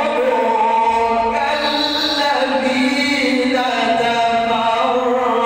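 A man's voice in melodic Quran recitation (tajweed), one long drawn-out phrase whose pitch slides slowly without a break.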